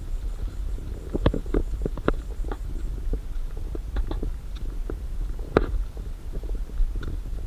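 Low rumble of wind buffeting the microphone, with scattered irregular clicks and knocks, the loudest about a second in and again past the middle.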